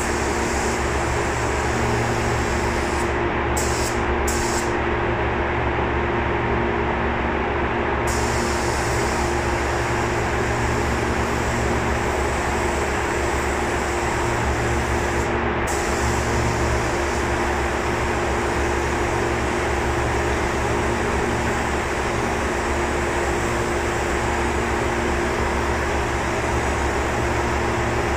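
Steady mechanical hum of fan or compressor machinery, with the hiss of a compressed-air spray gun spraying primer onto aluminium. The hiss stops for a few seconds near the start and again for a moment around the middle as the trigger is released.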